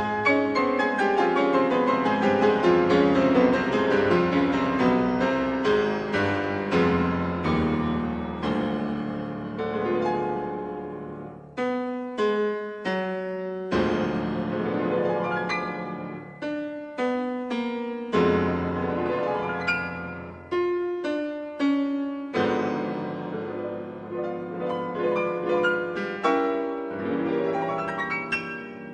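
Piano music: a run of chords and melody notes, thinning to separate struck notes in the second half.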